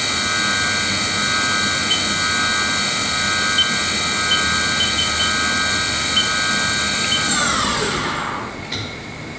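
The 30 hp geared CAT 50 spindle of a Haas VF5 vertical machining center, running steadily at about 3000 RPM with a whine of several tones and a few faint ticks. About seven seconds in, the whine falls in pitch and fades as the spindle slows almost to a stop.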